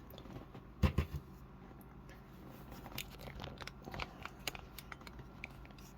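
Hard plastic action-figure accessories being handled on a tabletop: two sharp knocks about a second in as a heavy solid plastic piece is set down, then scattered light clicks and rustling of packaging.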